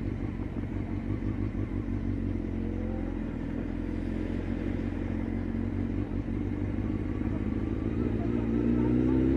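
Motorcycle engine running at low speed through town streets, its pitch rising near the end as the bike accelerates.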